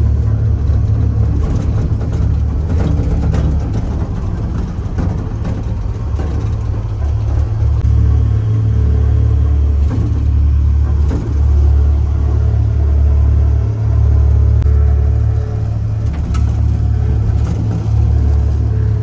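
Steady low rumble of a vehicle running, swelling and dipping.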